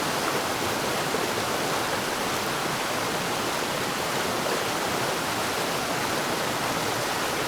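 Steady rush of white water from the Ganges rapids around a raft.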